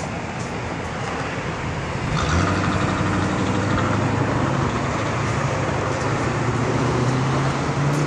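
Tuned Chevrolet Corvette C4's V8 exhaust, a deep engine note that comes in about two seconds in and holds steady as the car approaches, over traffic noise.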